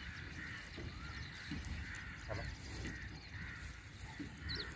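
Wind rumbling on the microphone, with a few faint, scattered bird calls.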